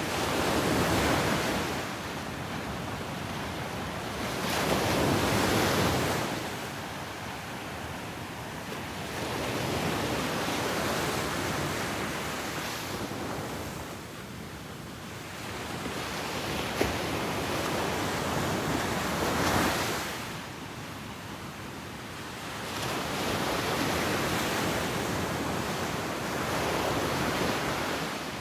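Ocean waves breaking and washing up on a beach, surging in a slow rhythm of a swell every four to five seconds over a steady wash of surf, with a little wind on the microphone. A single sharp click comes about two-thirds of the way in.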